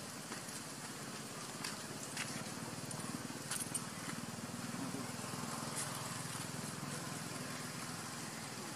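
Faint steady low drone with light background hiss and a few small clicks.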